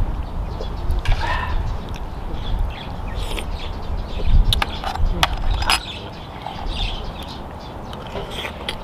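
Close-up eating sounds of a man chewing boiled blood cockles in seafood dipping sauce, with several sharp clicks of a metal spoon against the cockle shells and the metal tray as he scoops. A bird chirps in the background.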